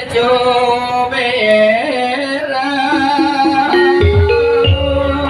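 Javanese gamelan music with a singing voice: held metallophone notes under a wavering vocal line, with low thuds about four seconds in and again just after.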